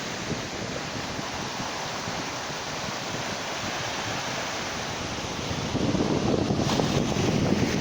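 Steady hiss of ocean surf and wind. Wind buffets the microphone with a heavier low rumble from about six seconds in.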